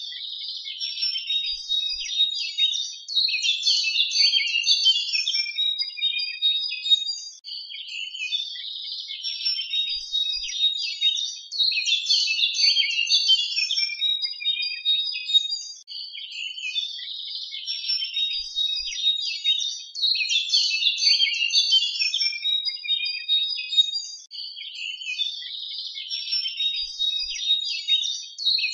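A dense chorus of songbirds chirping and twittering, high-pitched and continuous, from a stock recording whose stretch of song repeats about every eight seconds.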